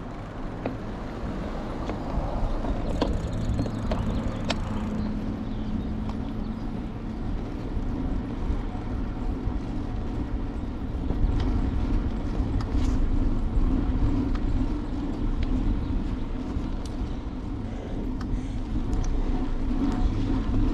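Wind rumble on a handlebar-mounted action camera and the bicycle rolling on asphalt while climbing, with a steady low hum throughout. A car passes a few seconds in, and the rumble grows louder after about eleven seconds.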